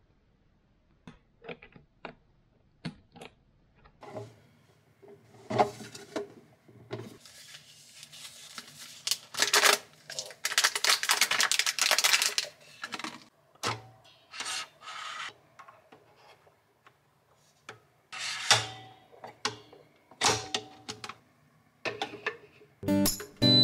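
Foil wrapper of an illy coffee capsule crinkling and tearing as it is opened, in several bursts, loudest for about three seconds near the middle, among scattered light clicks and knocks of the capsule and a ceramic mug being handled at a capsule coffee machine. Near the end the coffee machine starts up with a steady hum.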